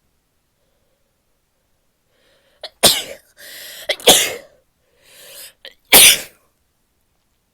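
A woman sneezing three times, each sneeze preceded by an audible in-breath. The sneezes come about three, four and six seconds in.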